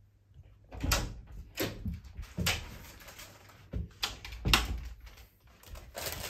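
A wooden interior door being handled and opened, with about half a dozen irregular knocks and thumps around it.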